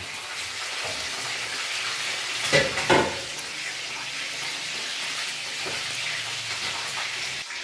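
Food frying in a pan on a gas cooker, a steady sizzle, with two brief louder sounds a little under halfway through.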